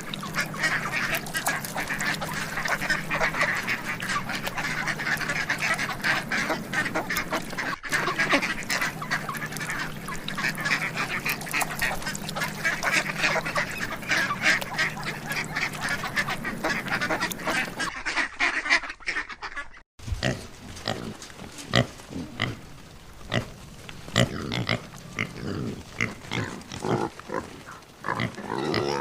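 A flock of waterfowl calling, many quacks and honks overlapping densely. About eighteen seconds in, it cuts out, and a pig takes over, grunting in short separate grunts.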